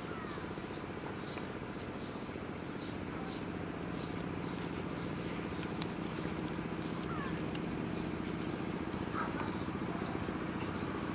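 Steady low hum of outdoor background noise with a few faint short chirps, and one sharp click about halfway through.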